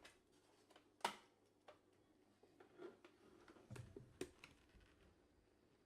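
Faint, scattered clicks and taps of laptop plastic and parts being handled while the keyboard is pried at. The sharpest click comes about a second in, with two more a little before the two-thirds mark.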